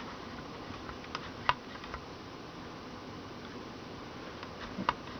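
A few light, sharp clicks and taps of small parts being handled while grease is worked onto a wah pedal's rack gear, over a steady low hiss.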